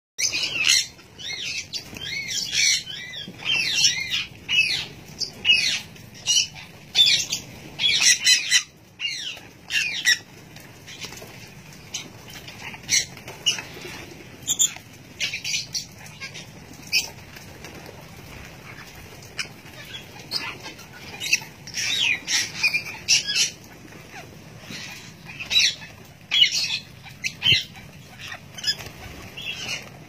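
A flock of sun conures and other small parrots screeching in many short, shrill calls that overlap at times. The calls come thick and fast for the first ten seconds, thin out in the middle and pick up again toward the end.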